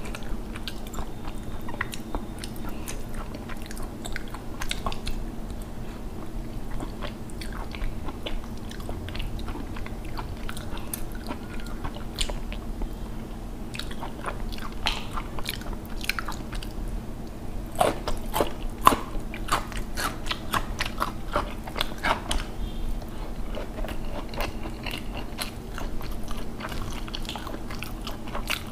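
Close-up eating sounds of a person chewing and smacking mouthfuls of rice and fish curry, with sharp clicks of biting that come thickest and loudest about two-thirds of the way through. A steady low hum runs underneath.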